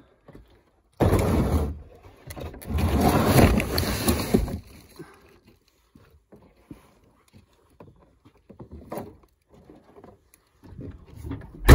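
Handling noise as ice-fishing gear is packed into a black plastic sled: two loud spells of rustling and scraping in the first half, then scattered small knocks and clicks.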